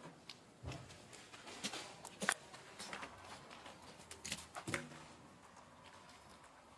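Long-tailed macaques at a clay water jar: scattered light taps and scrapes with a few short, squeaky calls, the busiest part in the first five seconds.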